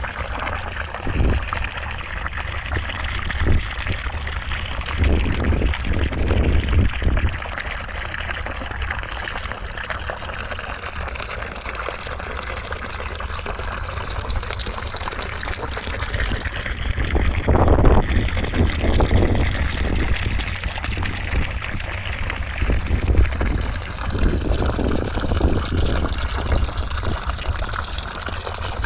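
Steady rushing white noise with a gushing, running-water character, its tone slowly sweeping up and down, with a few brief low rumbles, the strongest about two-thirds of the way through.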